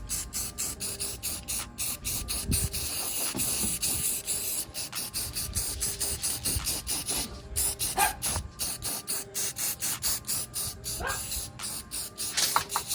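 Aerosol spray-paint can hissing in short, quick bursts, spraying black paint.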